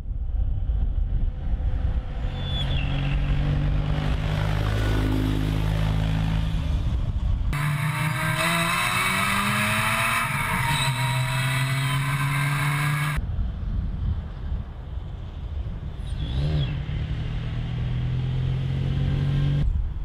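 PAL-V One flying car driving along a road, its engine running steadily. In the middle stretch, heard from a camera mounted on the vehicle, wind rushes loudly over the microphone while the engine pitch shifts.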